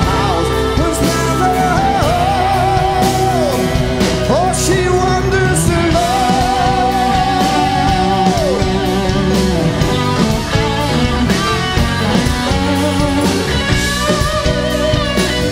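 Live progressive rock band: a male lead singer holds long notes with vibrato over electric guitar and the rest of the band. Near the end the voice drops out and the electric guitar comes forward.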